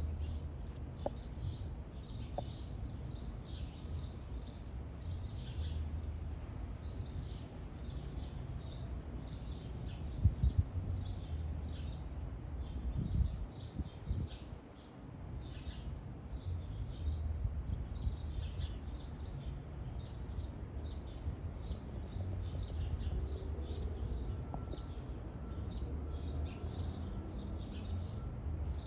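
Small birds chirping in the background, short high notes repeating about twice a second, over a low steady rumble. A few knocks come about ten seconds in, and a louder bump near thirteen seconds.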